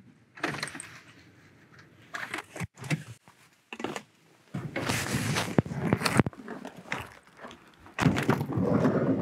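A minivan's driver door unlatching and swinging open, with clicks, knocks and rustling as someone climbs out onto the snow.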